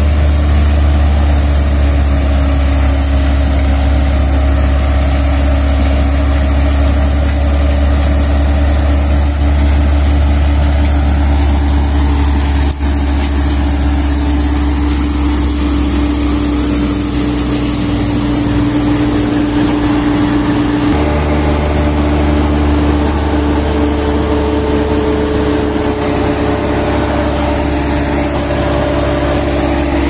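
Combine harvester running at close range while harvesting wheat: a loud, steady drone of its engine and working machinery. The tone changes abruptly about two-thirds of the way through.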